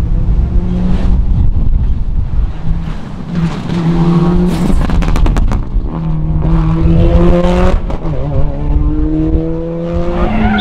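Rally car accelerating hard, its engine revs climbing and dropping back with each upshift about three times. There are sharp crackles about halfway through.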